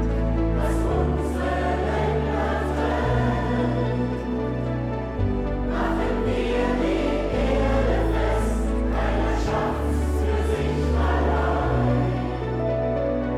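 Choral music: several voices sustaining slow chords over a deep bass line that changes note every second or two.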